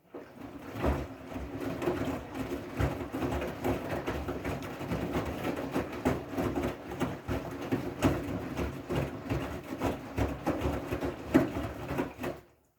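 Siemens i-Dos front-loading washing machine running a gentle wool/delicate cycle: a steady motor hum as the drum turns, with irregular soft knocks and swishes of the wet laundry. The sound starts abruptly and cuts off just before the end.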